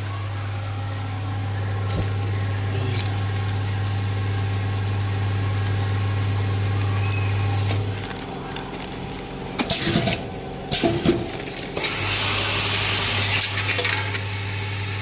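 Screw packing machine's vibratory disc feeder buzzing steadily. The buzz stops about eight seconds in, giving way to a few sharp metallic clinks and knocks, then starts again about twelve seconds in.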